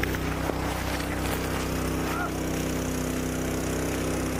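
Steady low hum of a running engine, holding an even pitch and level throughout.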